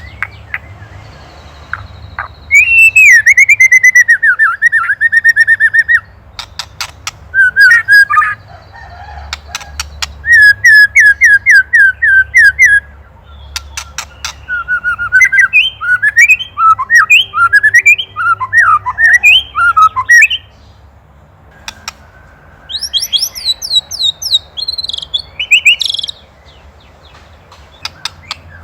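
White-rumped shama (murai batu) singing loud, broken phrases of rapidly repeated whistled notes and quick sweeps, interspersed with runs of sharp dry clicks (the 'ketrekan' rattle). There are short pauses between phrases.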